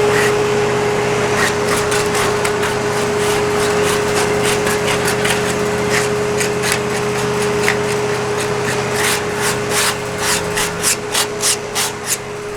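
Wood-Mizer LT40 band sawmill running with a steady whine and engine hum as the blade cuts through a driftwood log. Sharp ticks and cracks come more and more often over the last few seconds.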